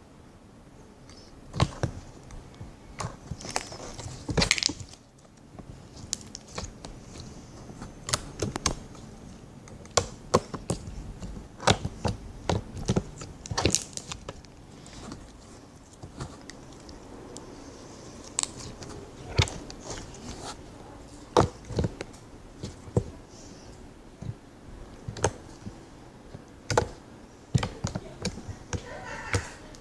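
Slime being squeezed and worked in the hands, giving irregular sharp clicks and pops, several a second.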